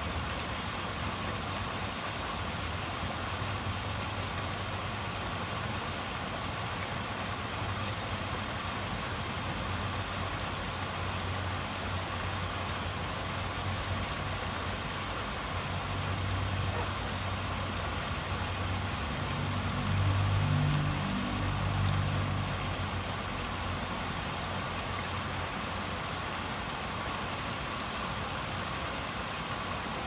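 Paddlewheel aerator running in a pond: the steady hum of its motor under the continuous splash and churn of the paddles beating the water. About twenty seconds in, a louder low rumble swells for a couple of seconds, then fades.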